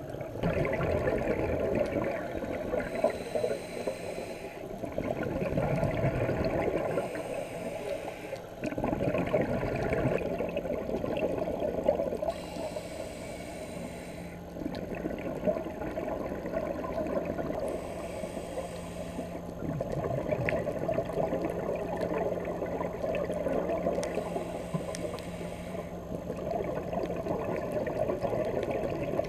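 Scuba diver breathing through a regulator underwater: a hissing inhale and then a rush of exhaled bubbles, repeating every five or six seconds, with a faint low steady hum through the middle part.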